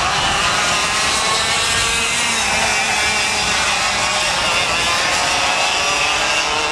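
Two-stroke Leopard kart engines running at high revs, several at once, their pitches wavering up and down as the karts accelerate and lift off through the corners.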